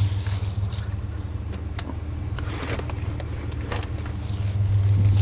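Truck engine idling with a steady low hum, with a few scattered light knocks over it.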